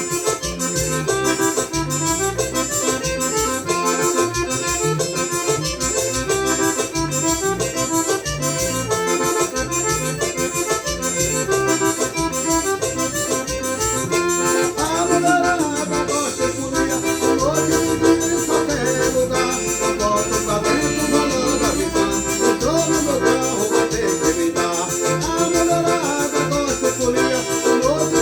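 Forró music led by accordion, over a stepping bass line and a steady percussion beat.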